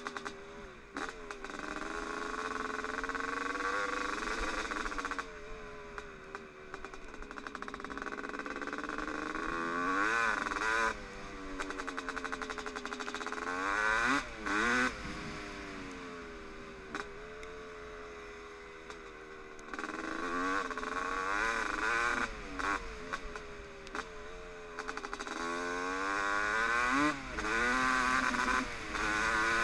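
1996 Honda CR250R's single-cylinder two-stroke engine under way, revving up and down: the pitch climbs repeatedly and drops back with short breaks as the throttle is rolled off and gears change.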